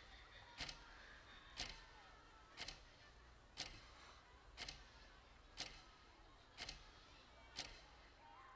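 Quartz analogue alarm clock ticking faintly, one tick about every second, over near silence.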